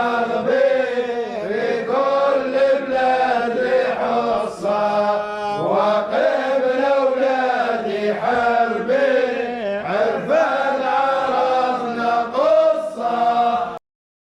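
Sufi devotional chanting of the Issawiya order: a drawn-out sung line that rises and falls in pitch without pause, then cuts off abruptly shortly before the end.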